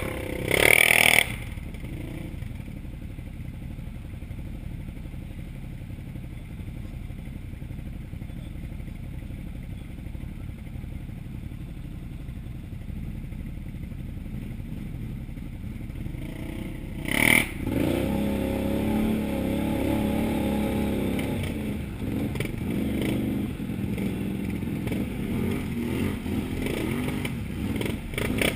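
Can-Am Outlander XMR 1000R ATV's V-twin engine running at a steady low pace on a dirt trail, with a brief loud clatter about a second in. Another clatter comes at about seventeen seconds, after which the engine note rises and holds higher for a few seconds before settling.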